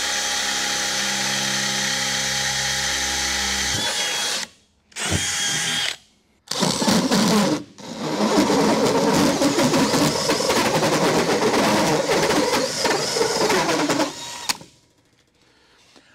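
Cordless drill boring a pilot hole through the shop wall. It runs with a steady, even whine for about four seconds and gives a short burst. From about six seconds it runs rougher and louder for about eight seconds as the bit cuts, then stops shortly before the end.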